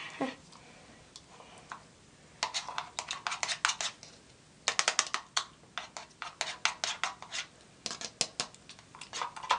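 Metal spoon stirring a thick yeast and warm-water mixture in a plastic cup, clicking and scraping quickly against the cup's sides. The clicks come in two runs, one from about two and a half seconds in and a longer one from about five seconds in.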